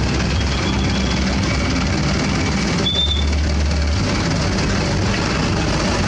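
Truck engines running, a steady loud sound with strong low rumble and a brief high tone about three seconds in.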